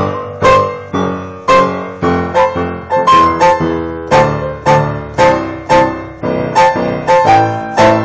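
Piano played in a steady rhythm: chords struck about twice a second, each ringing and fading before the next.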